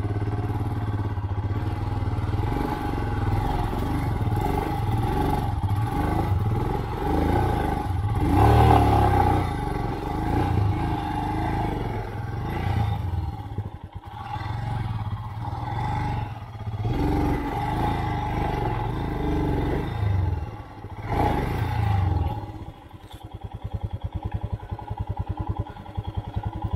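Royal Enfield Himalayan's single-cylinder engine working through rough off-road ground, revs rising and falling with the throttle, with a few sharp knocks along the way. About 22 seconds in it drops to an even, pulsing idle.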